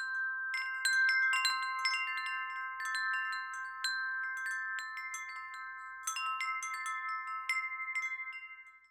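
Wind chimes ringing: several pitched tones struck in irregular clusters, their rings overlapping and sustaining, then dying away near the end.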